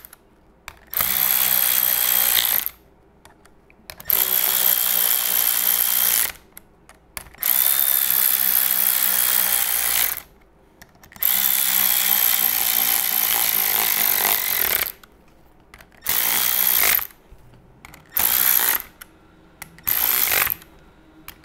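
Electric ratchet running bolts into an ATI Super Damper hub, seven separate whirring runs with short pauses between. The bolts are being run down snug before torquing, and the last few runs are short as the bolts seat.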